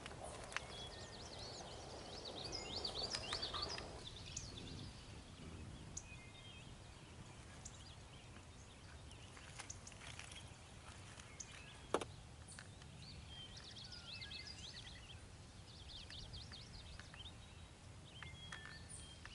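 Faint outdoor ambience with birds chirping in quick bursts of high rising and falling notes, twice, and one sharp click about twelve seconds in.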